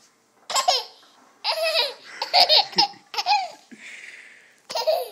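Toddler laughing in about five short bursts of high-pitched giggles with short pauses between them.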